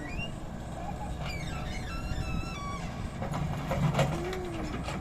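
Excavator's diesel engine running with a steady low hum, a whine that rises and falls near the end, and a few sharp knocks about four seconds in. A run of short high chirping tones sounds between them.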